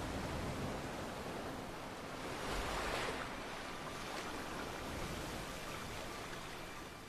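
Ocean surf washing onto a sandy beach, a steady hiss of breaking waves that swells louder about three seconds in.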